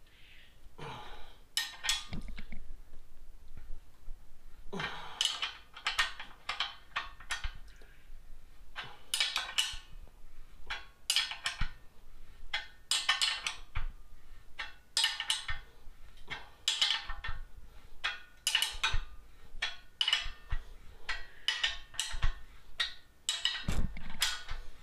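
Wrench being swung back and forth to tighten a large bolt, with short runs of ratchet clicking about once a second and a few dull metal knocks.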